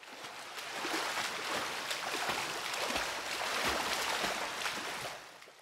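Water lapping and gently splashing, a steady watery wash with small irregular gurgles. It swells in over the first second and fades out near the end.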